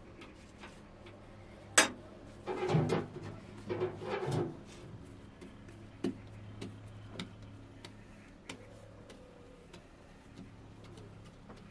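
Hands working and shaping bread dough on a floured cloth: soft rubbing and light taps. A sharp click about two seconds in and two louder noisy bursts around three and four seconds in are the loudest sounds.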